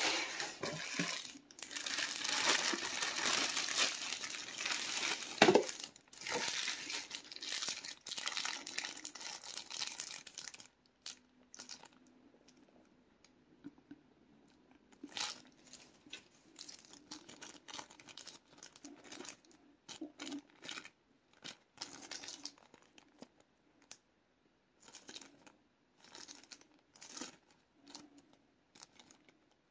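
Plastic packaging crinkling as it is handled. There is dense, continuous crinkling for roughly the first ten seconds, with one sharp crack about five seconds in. After that come scattered short crinkles as small clear plastic parts bags are turned over in the hands.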